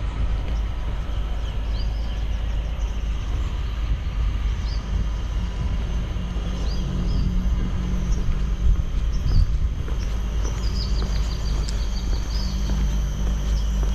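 Outdoor background noise: a steady low rumble, with short high bird chirps now and then and a quick run of chirps about eleven seconds in.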